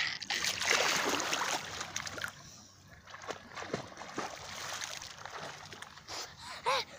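Seawater splashing and sloshing close to the microphone as a person moves in the water, loudest in the first two seconds and then quieter, with scattered small splashes. A short pitched call comes near the end.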